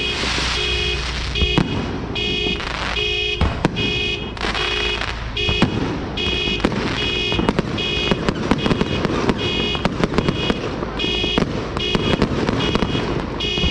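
Fireworks and firecrackers going off in a dense run of sharp cracks and bangs, over a regular electronic beeping of about two beeps a second, like an alarm.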